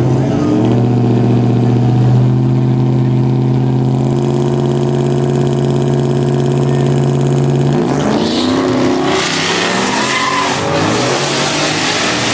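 Chevrolet Silverado pickup's engine held at a steady rev on the drag-strip starting line, then launching about eight seconds in, its pitch rising again and again as it accelerates away down the track.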